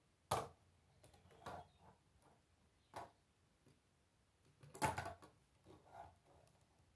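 Plastic K'nex rods and connectors clicking and snapping together as pieces are fitted by hand: a handful of separate sharp clicks, with the loudest ones just after the start and about five seconds in.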